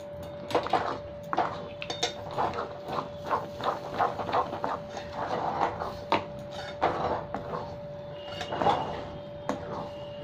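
Metal spatula scraping and knocking against a metal kadai while stirring a thick ground-lentil paste. The strokes are irregular, roughly two a second; the paste is being cooked down with spices until it comes together.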